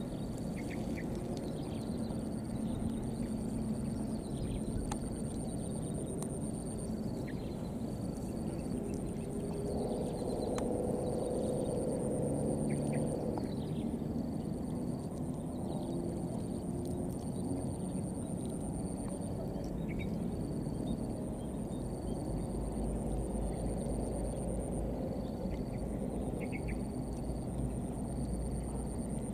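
Outdoor field ambience: a steady low noise with two high, repeating insect-like tones over it. One tone pulses about once a second; the other, higher one runs in long stretches with short breaks. A low hum swells for a few seconds near the middle, and a few faint short chirps come and go.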